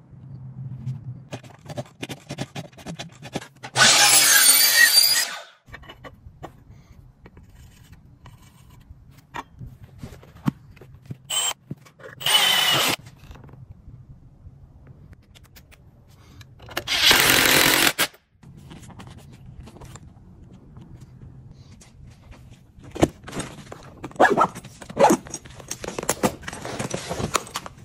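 Short bursts of a cordless drill running, four of them lasting up to about a second and a half. Between them come clicks and handling noises over a low steady hum, with a cluster of sharp knocks and scrapes near the end.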